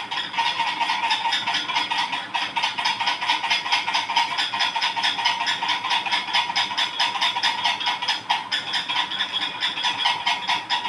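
Crompton ceiling fan squeaking at its ceiling hook, a fast rhythmic squeak about three to four times a second that sounds like laughing "ha ha ha". It is a sign of the fan's mount rubbing on the hook as it turns.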